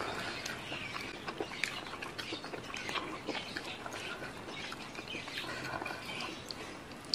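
Close-miked eating sounds: many short wet smacks and crisp crunches of chewing, with raw leafy greens rustling as a handful is gathered by hand.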